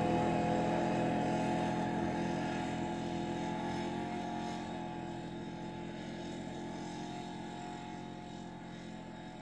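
Side-by-side UTV engine running at a steady speed as it drives away, its sound fading steadily.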